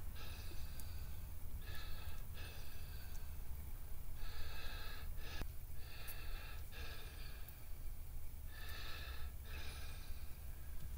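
A man breathing audibly through his nose close to the microphone, a short in-and-out pair of breaths every two to three seconds, over a steady low hum.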